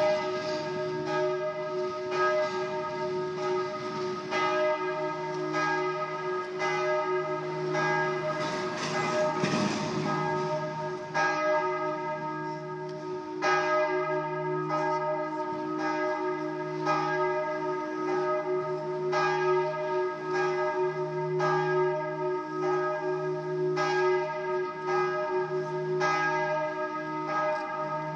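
Church bells ringing steadily, about one strike a second, the tones overlapping and ringing on between strikes.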